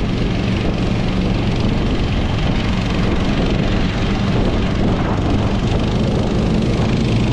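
Small snow machine's engine running steadily as it travels across the ice, with a low, even drone over a constant rushing noise.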